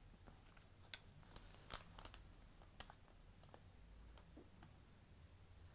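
Near silence, broken by a few faint clicks and taps as a small ink bottle and a small glass inkwell are handled while ink is poured in; the clearest click comes a little under two seconds in.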